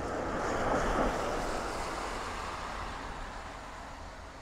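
A passing road vehicle: a rush of traffic noise that swells about a second in, then slowly fades away.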